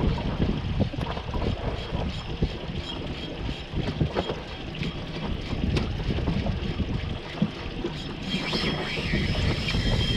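Wind buffeting the microphone over the wash of the sea around a small boat, with scattered short clicks. About eight seconds in, a thin high whine starts: a spinning reel's drag giving line as a hooked mahi-mahi pulls.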